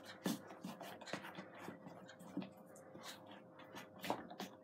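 A spoon stirring a thickening slime mixture of glue and shaving foam, with activator just added, in a plastic tub: irregular light clicks and knocks as the spoon hits and scrapes the plastic, a few a second.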